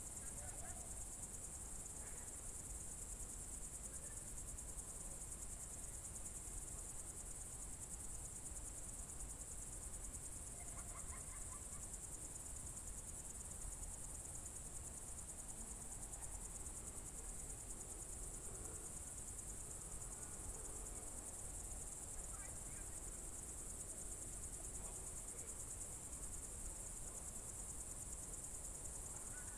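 Crickets trilling in one continuous high-pitched chorus, faint and unchanging. A few faint, brief chirps sound now and then beneath it.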